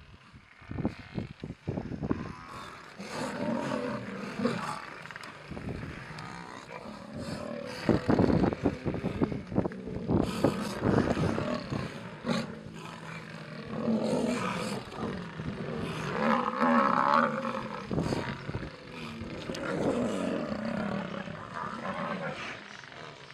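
Lion growling and roaring in repeated harsh bursts, a big cat snarling in defence while Cape buffalo attack it.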